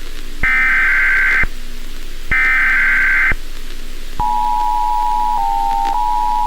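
Emergency Alert System tones: two bursts of the SAME digital data header, each a screeching about one second long with a second's gap between them, then about four seconds in the two-tone EAS attention signal starts, a steady dual tone that briefly dips slightly in pitch a second after it begins.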